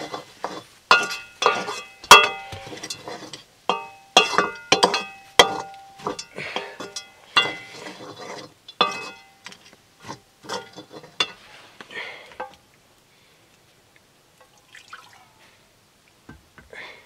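Metal spatula stirring food in an iron wok, its strikes and scrapes making the pan ring, irregularly, about two a second. The stirring stops about twelve seconds in.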